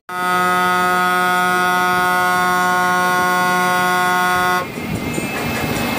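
Bus horn held in one long, steady blast for about four and a half seconds, then cut off, leaving the bus's engine and road noise.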